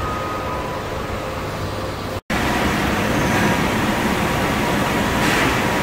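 Steady industrial din of a spring factory floor: an even rushing hum of machinery with faint steady tones. It breaks off for an instant a little over two seconds in and comes back a little louder.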